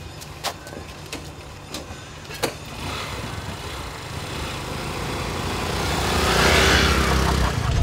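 Small motorcycle and scooter engines running, with a few sharp knocks in the first two and a half seconds. The engines then grow louder as the bikes pull away and ride close past, loudest about six and a half seconds in.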